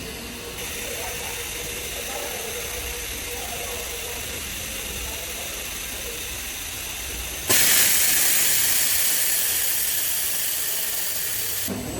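Heat staking welding machine running with a steady hum, then a loud rush of air hiss that starts suddenly about seven and a half seconds in, holds for about four seconds and cuts off abruptly.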